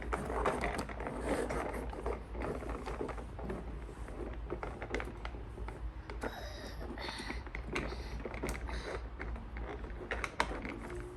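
Small plastic Play-Doh toy pieces and tools being handled, with a steady run of light clicks, taps and rustles.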